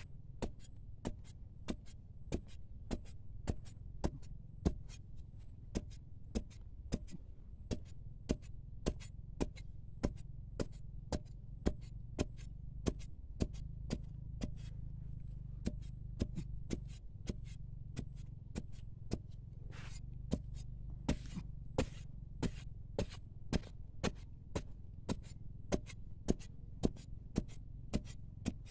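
Metal digging blade stabbing into dry, packed sandy soil in a steady rhythm, about two sharp strikes a second, over a steady low rumble.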